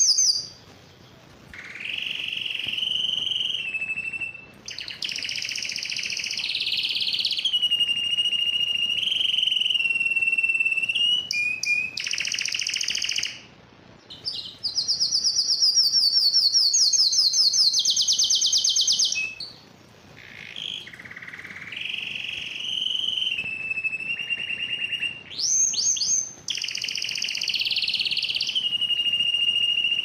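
Canary singing a long continuous song of rapid trills and rolls. High, fast trills alternate with lower, steadier rolling phrases, and the song breaks off briefly every few seconds before starting again.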